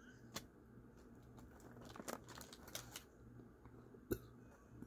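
Faint clicks and crinkles of a utensil handling food in plastic takeout containers while eating, clustered in the middle, with one sharper click about four seconds in. A low steady hum lies underneath.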